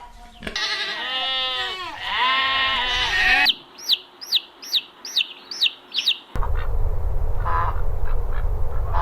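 A goat bleating twice in long, wavering calls. Then a run of about seven short, high chirps, each falling in pitch. It cuts to a low outdoor rumble with faint calls near the end.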